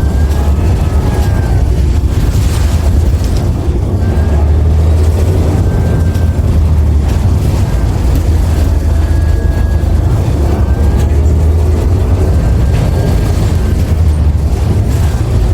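Inside a 2016 New Flyer XDE60 hybrid articulated bus under way: a heavy, steady low rumble from the drivetrain, with a faint whine from the hybrid drive that rises and falls several times. The rider found this bus's motor and transmission sounds weird and off compared to other hybrid artics with Allison transmissions.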